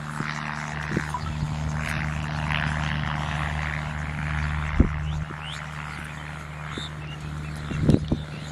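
An engine drones steadily in the background, one unchanging low hum, with a faint high chorus above it and a few short knocks, the sharpest about halfway through.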